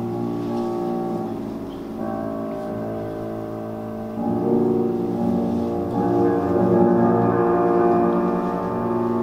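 Solo piano playing slow, sustained chords, changing every couple of seconds and growing louder about halfway through.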